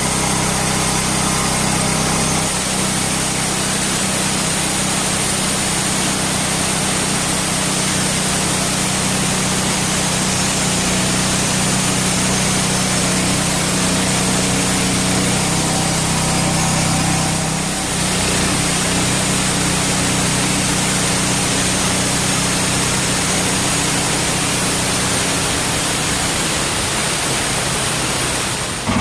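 Portable bandsaw mill running steadily, its engine droning under load while the band blade cuts a flat face on a large ash burl, with a brief dip in level a little past the middle.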